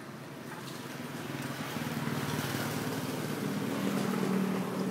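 Small motorcycle engine running as the bike rides past close by, growing louder to a peak about four seconds in and then easing off.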